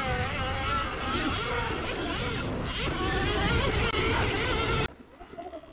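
Electric dirt bike motor whining and changing pitch with speed while riding, over heavy wind noise on the microphone; it cuts off abruptly near the end.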